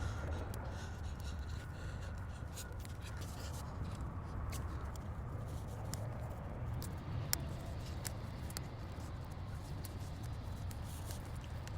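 Scattered light clicks and scrapes of hand tools at work on a tire, the sharpest click about seven seconds in, over a steady low rumble.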